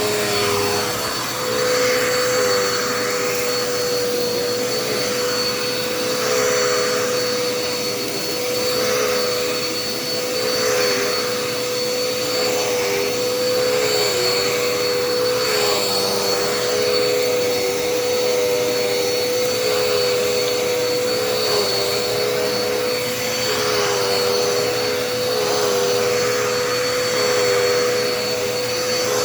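Dirt Devil Endura Reach upright vacuum cleaner running with a steady motor whine. The rush of air swells and eases every second or two as it is worked over the floor.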